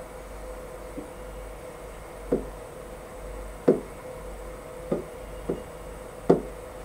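Pen tapping on an interactive whiteboard's touchscreen: five or six sharp, short taps at uneven intervals, over a steady low electrical hum.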